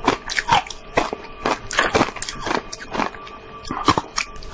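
Teeth biting and crunching through a slab of frozen ice shaped like a Christmas tree, a quick run of sharp crunches about three a second.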